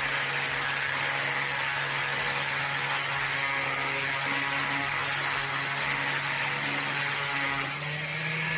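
Power sander with a worn sanding disc running steadily against a part, a continuous motor hum with abrasive hiss.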